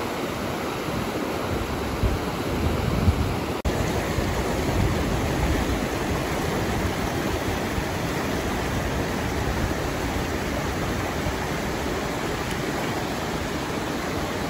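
Fast mountain river rushing over rocks and boulders: a steady, full rush of water.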